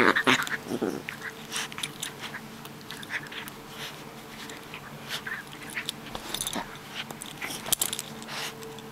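Maltese dog play-biting and mouthing a person's hand and sweater sleeve: scattered snaps, clicks and rustling of fur and fabric.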